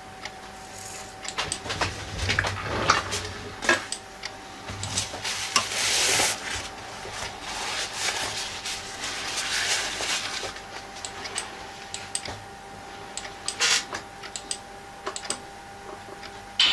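Light clicks, taps and short scrapes from handling a model locomotive chassis on its track, over a faint steady high tone.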